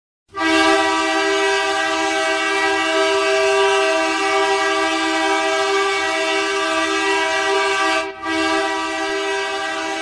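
Bakersfield Condors hockey goal horn blasting: one long, loud, steady chord with two low notes, starting suddenly and breaking off for a moment about eight seconds in before sounding again.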